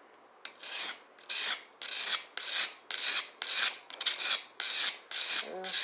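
A knife blade being stroked across a sharpening stone, a steady series of scraping strokes at about two a second, grinding nicks out of the edge.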